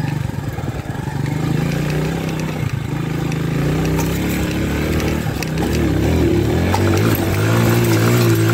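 Mondial 150 KT's single-cylinder four-stroke engine pulling under load up a steep grassy slope. It runs steadily at first, then the revs climb and waver over the last few seconds as the throttle is opened.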